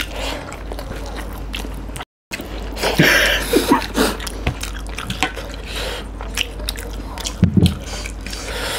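Close-miked eating with the hands: wet chewing and mouth smacks, and fingers squishing through rice and fish curry, full of small clicks and crackles. The sound drops out briefly about two seconds in.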